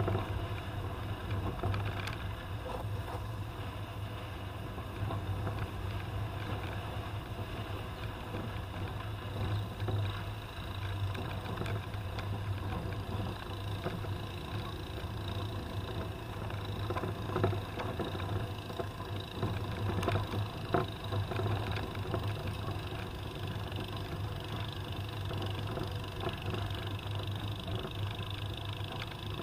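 Toyota Land Cruiser on the move: a steady low engine drone with road and rattle noise, and a few sharp knocks past the middle.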